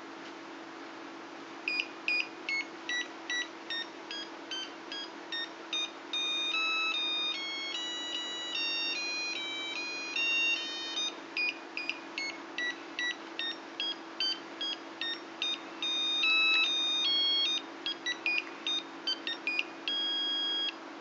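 A dsPIC33F microcontroller alarm clock playing its alarm tune in electronic beeps. Quick short notes alternate with longer held ones over a faint steady hum. The tune starts about two seconds in and stops just before the end.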